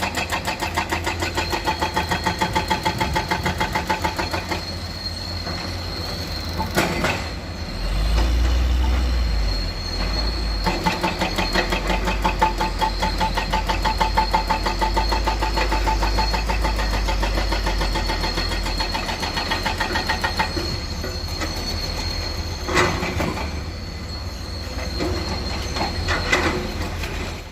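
Komatsu PC200 excavator's diesel engine running with a fast, even pulse and a steady high whine, deepening into a heavier rumble for several seconds in the middle as it works. A few sharp clanks of metal and rock sound over it, the loudest about seven seconds in.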